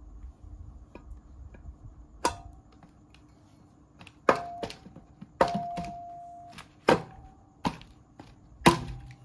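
Sharp metal clinks and knocks, about seven of them at uneven intervals, several ringing briefly, as the cast crankcase parts of a Hero Maestro scooter engine are handled and fitted together during reassembly.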